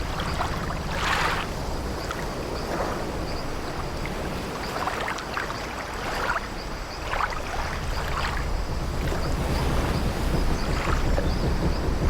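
Old wooden ship's timbers creaking in a series of short, irregular creaks over a low, steady wash of sea waves.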